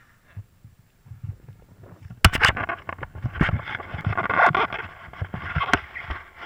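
Handling noise from the camera: a couple of low thumps, then, about two seconds in, sharp knocks and loud rubbing as hands grip the camera and cover its microphone.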